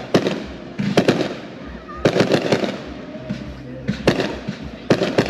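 Fireworks going off: a string of sharp bangs and crackles about once a second, with a dense cluster of several reports around two seconds in.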